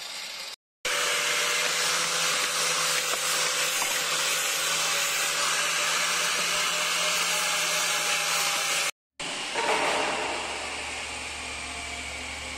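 Handheld angle grinder with a cutting disc running at full speed, cutting through a bamboo tube, a loud steady whine for about eight seconds. It stops abruptly and gives way to a quieter steady hum with a brief falling whine.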